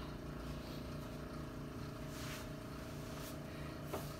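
Steady mechanical hum of a running motor, with a low pulsing throb under a fixed tone, and one short knock near the end.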